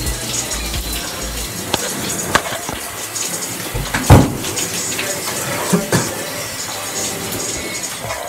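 Shower water running steadily, with a few small clicks and one sharp knock about four seconds in.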